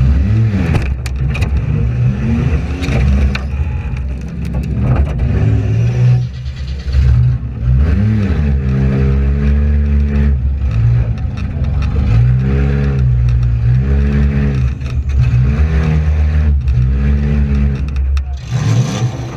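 Front-wheel-drive demolition derby car's engine revving hard up and down in repeated bursts, with scattered sharp knocks and clanks of metal.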